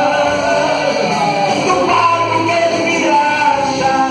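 Male gospel singer singing into a handheld microphone, his voice amplified over loud backing music.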